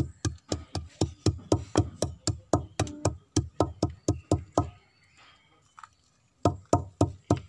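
Wooden pestle pounding black peppercorns and salt in a deep wooden mortar: steady, even thuds about four a second. The thuds pause for about a second and a half near the end, then resume.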